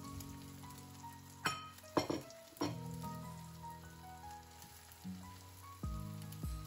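Eggs and crumpet cubes frying in a non-stick pan, with a few knocks and scrapes from about a second and a half in as the bread cubes drop in and a wooden spatula turns them. Soft background music with held notes plays over it.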